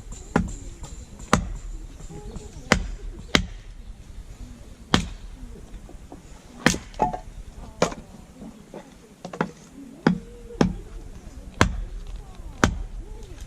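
Firewood being split by hand: about a dozen sharp chopping strikes, unevenly spaced at roughly one a second.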